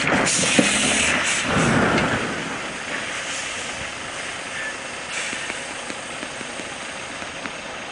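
A loaded semi-trailer tipping over onto its side in snow: a loud crash and scrape lasting about two seconds, followed by steady engine noise and hiss.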